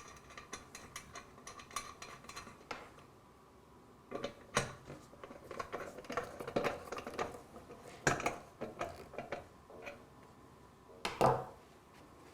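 Metal clicks and clinks of the water distiller's metal bottom plate being fitted back on and its bolt tightened with a spanner, with three louder knocks spread through.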